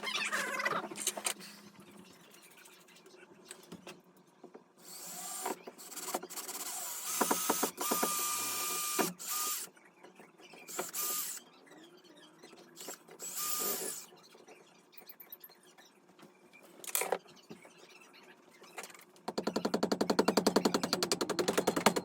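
Power drill run in several short bursts, driving screws into the wall, one burst a few seconds long with a steady whine. Near the end comes a longer stretch of rapid, even clicking.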